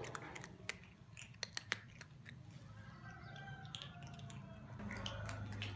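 A cat chewing hard dry kibble: a run of irregular sharp crunches and clicks.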